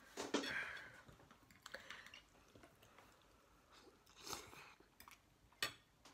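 A person quietly chewing a mouthful of instant noodles, with a few short wet mouth sounds, the strongest about half a second in and again near four and five and a half seconds.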